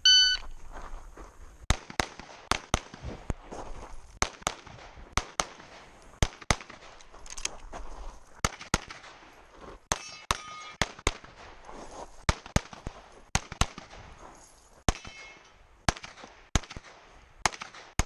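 Shot-timer start beep, then a competitor's pistol firing a stage: many sharp shots, mostly in quick pairs, with short pauses between strings.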